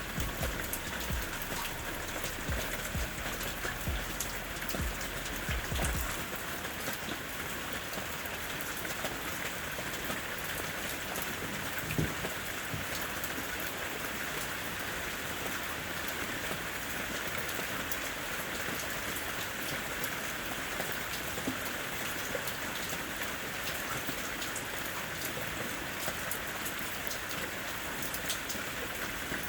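Steady rain falling, an even hiss of many drops with fine scattered patters. A low rumble underneath dies away about six seconds in, and one sharper knock sounds about twelve seconds in.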